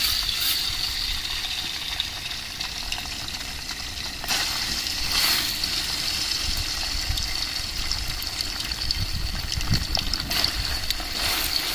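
Hot cooking oil sizzling steadily in an aluminium pot as spoonfuls of boiled rice are dropped into it. The sizzle surges louder a few times as fresh rice goes in.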